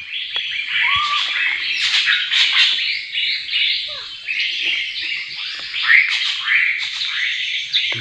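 Many small birds calling at once: a dense, continuous chatter of high squawks and rapid chirps, overlapping one another.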